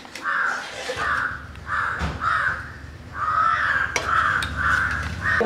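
Crow cawing over and over, about nine harsh caws in quick succession. Two sharp clicks come about two and four seconds in.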